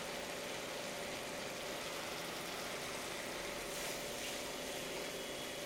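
Country-chicken pieces and masala frying in a wok, a steady, even sizzling hiss.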